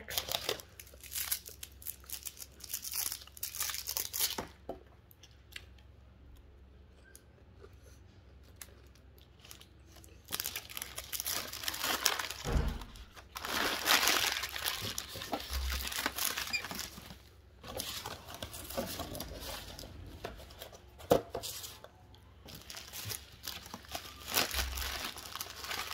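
Gold foil chocolate wrappers crinkled and torn open by hand, in bursts. There is a quieter stretch of about five seconds a few seconds in, then denser crinkling, with a few dull thumps along the way.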